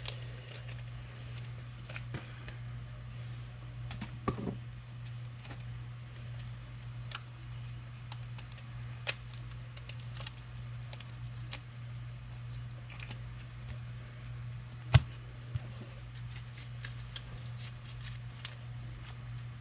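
Trading cards being handled and sorted in the hands: scattered light clicks and ticks of card stock, with one sharper click about three-quarters of the way through, over a steady low hum.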